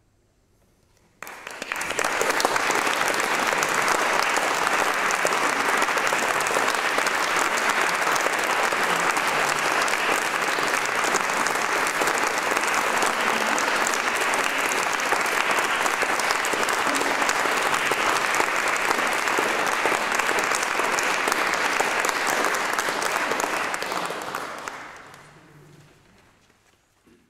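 Audience applauding. After a moment of near silence it starts suddenly about a second in, holds steady, then dies away over the last few seconds.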